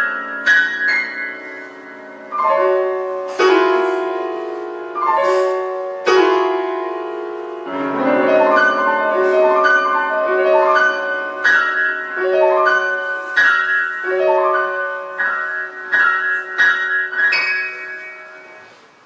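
Solo piano playing a run of quick single notes and chords in the middle and upper range. A last chord is struck near the end and rings away to silence.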